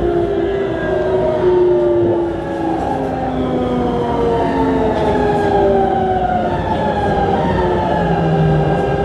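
Siemens GTO-VVVF inverter and traction motors of a Keikyu New 1000 series train, heard on board, whining in several tones that slide steadily lower as the train brakes for its stop, over a steady rumble of wheels on rail.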